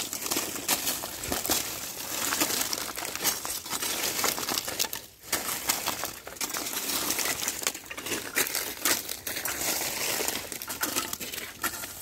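Lumps of wood charcoal being handled and broken by hand: a dense, irregular run of dry cracks, crunches and light clinks, with a short lull about five seconds in. The pieces crumble easily, which the seller takes as a sign of good charcoal.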